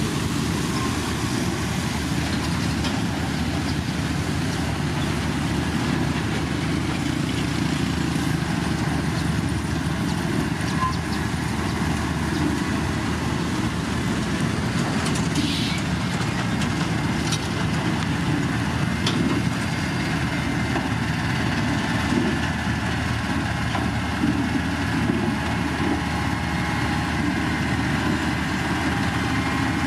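Diesel engine of heavy road-construction machinery running steadily at an even pitch and level, with a few faint clicks.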